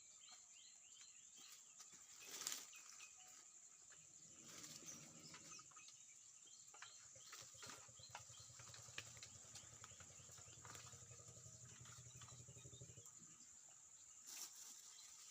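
Near silence: faint outdoor ambience with a steady high-pitched whine, scattered faint bird chirps and ticks, and a faint low hum through the middle.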